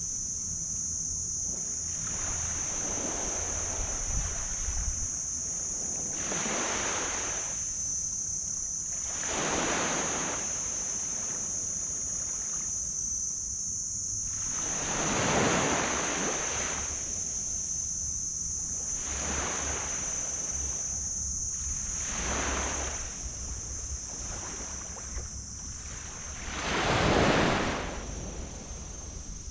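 Small tropical waves breaking and washing up the beach in a series of swells every few seconds, two larger ones about halfway through and near the end. Wind rumbles on the microphone, and a steady high-pitched hiss runs underneath.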